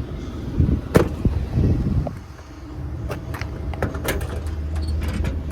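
A truck door or compartment latch clicking and a door shutting, with a sharp loud click about a second in and several lighter clicks later. Under them is the steady low hum of the truck's engine idling.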